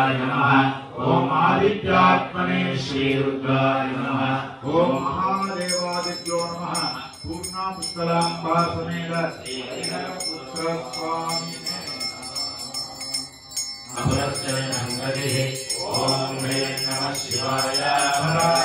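Vedic mantras chanted by voices in a steady recitation. About five seconds in, a high-pitched bell starts ringing rapidly and keeps ringing over the chant.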